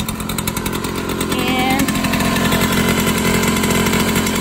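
Two-stroke engine of a 1967 Hercules Saxonette Supermatic 222 TS moped running steadily on its stand, a fast even buzz, slightly louder from about two seconds in.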